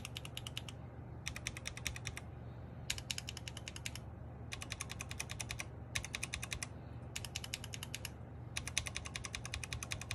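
Akko MOD001 mechanical keyboard with unlubed Akko CS Blue switches being typed on in quick bursts of about a second each, with short pauses between. The unlubed switches give a slightly scratchy keystroke.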